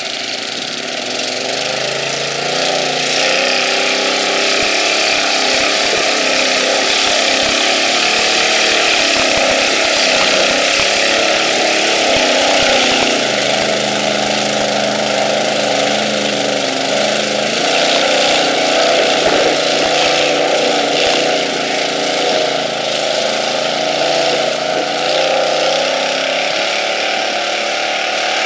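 Chevy truck engine run hard off-road, its revs rising and falling throughout, with scattered sharp crackles over the engine note.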